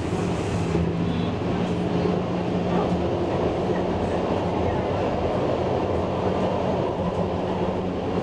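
A Stockholm A32 tram (Bombardier Flexity Swift) running at speed, heard from inside the passenger cabin. The traction motors give a steady hum under a continuous rumble of wheels on rail.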